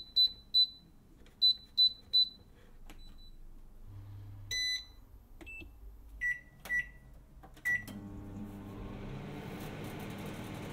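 Household appliances' electronic button beeps. First come two quick groups of three short high beeps, then single beeps at lower pitches. From about eight seconds in, an appliance runs with a steady hum.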